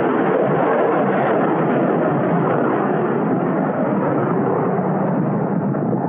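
Wind blowing hard across the camera microphone: a loud, steady rushing roar that starts suddenly.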